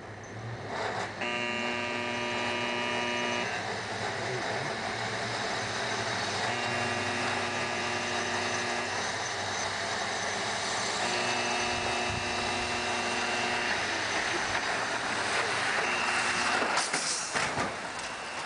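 A test car runs down a crash-test lane into a roller safety guardrail, its running noise building, while a steady-pitched horn sounds three long blasts of about two and a half seconds and a shorter fourth. Sharp knocks near the end are the car striking the barrier.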